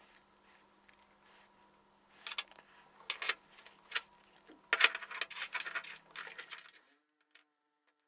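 Small metal pipe fittings and plastic tubing being handled and pushed together: a run of light clicks, taps and rattles that stops near the end.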